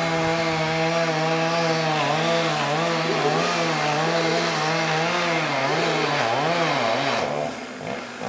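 Chainsaw engine running at high speed, holding a steady pitch at first, then bogging down and picking up again over and over, as under load in a cut. It eases off briefly near the end.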